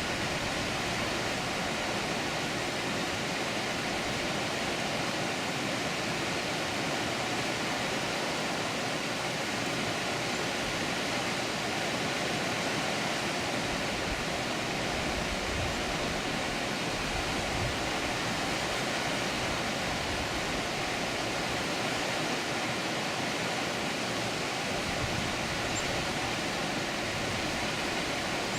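Water pouring over a dam spillway: a steady, unbroken rush.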